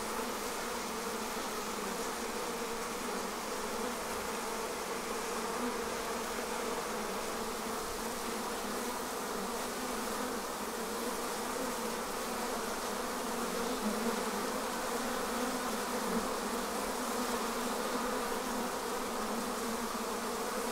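Dense, steady buzzing hum of a mass of honeybees at the hive entrance, workers fanning their wings and bees taking off. The colony is worked up and preparing to swarm.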